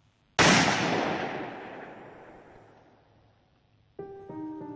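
A single gunshot about half a second in, its echo fading away over about three seconds. A few held music notes come in near the end.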